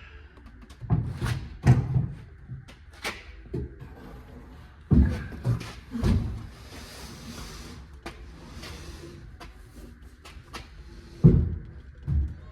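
A large wooden drawer being manoeuvred into its cabinet opening: wood knocking and thudding against wood a number of times, with a stretch of scraping as it slides on the wooden runners about midway through.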